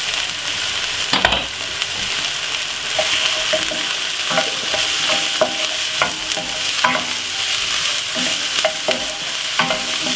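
Chopped white onion and spring onion sizzling in oil in a non-stick frying pan, stirred with a wooden spoon. Over a steady sizzle, the spoon scrapes and taps against the pan repeatedly, more often from about four seconds in.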